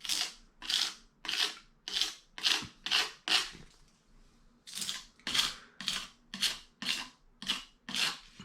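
Quick rhythmic rubbing or scraping strokes by hand, about two to three a second, with a short pause just before the middle.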